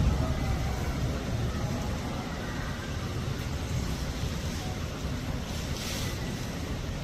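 Steady low rumbling background noise with no distinct event, and a brief hiss about six seconds in.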